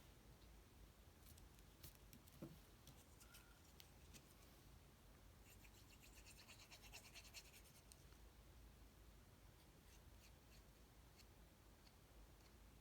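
Near silence with faint handling of paper card pieces: a few light taps and clicks, and a soft scratchy rustle in the middle.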